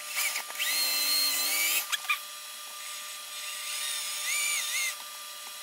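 Electric drill boring pilot holes in a thin aluminum strip, its motor whining in two runs of about a second and a half each, the pitch creeping up during the first.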